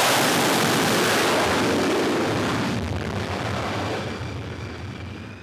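Dassault Rafale fighter's twin M88 turbofan engines at full power during a catapult launch from an aircraft carrier deck. A loud rushing roar that fades away over a few seconds as the jet climbs off.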